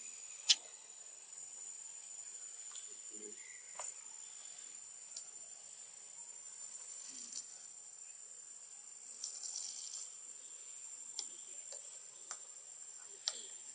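Steady high-pitched insect drone over a faint hiss, with a few short sharp clicks, the loudest about half a second in.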